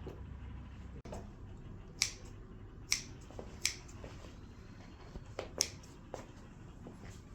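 A handful of sharp, irregularly spaced clicks over a low steady background hum, the strongest about two, three, three and a half, and five and a half seconds in.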